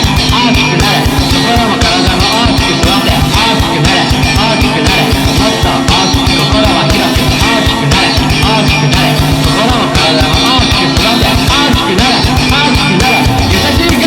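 Loud, fast punk-rock music with driving, rapid drumming under sustained bass and guitar notes.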